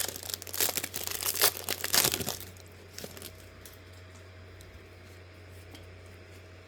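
Foil trading-card pack wrapper being torn open and crinkled for about two and a half seconds, followed by a few faint clicks and then quiet.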